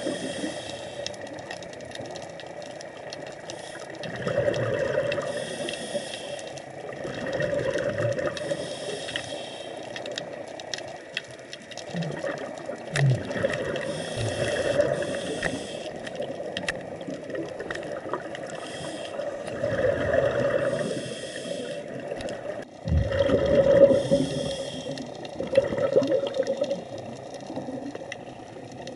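Scuba regulator breathing heard underwater: a hiss on each inhale and a gurgling rush of exhaust bubbles on each exhale, repeating every few seconds.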